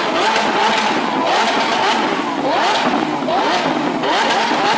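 Lamborghini Aventador 6.5-litre V12 revved in quick repeated blips, the pitch climbing and falling back roughly once a second over a steady exhaust rumble.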